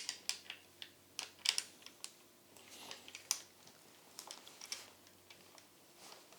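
Light, irregular clicks and taps of metal parts being handled as a hex bolt is pushed through the hex opening where a leg joins the toilet safety rail's frame, most of them in the first three or four seconds.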